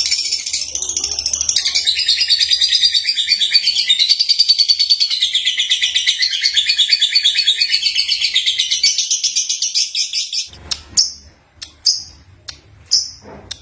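Young lovebird (Agapornis) singing: a long, rapid, high-pitched chattering warble for about ten seconds, then a few separate short chirps.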